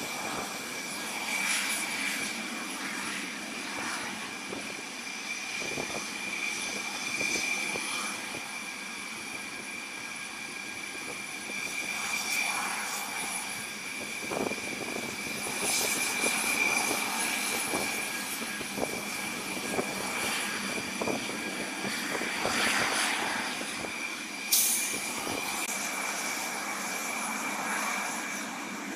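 C-130 Hercules turboprop transports taxiing, their four propeller engines running with a steady high-pitched whine over a rushing drone. A brief sharp click comes near the end.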